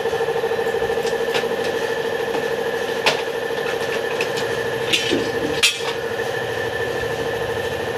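A steady mechanical drone, like a motor running, under a few sharp metallic clinks of tools being handled. The clinks come about a second and a half in, at three seconds, and twice around five seconds, the last the loudest.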